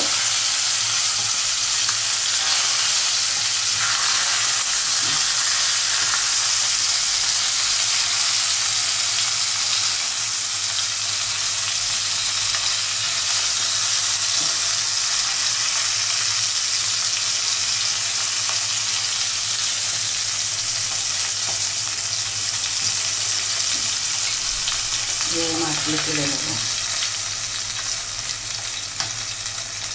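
Tilapia pieces frying in hot mustard oil in a pan, a steady sizzle, while the fish is gently stirred. The sizzle eases slightly near the end.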